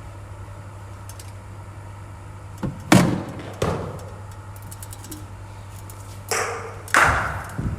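Cricket ball and bat: two deliveries from a bowling machine, each a quick group of two or three hard knocks with a ringing tail as the ball pitches and is struck, about four seconds apart. The loudest knocks come about three seconds in and again near the end.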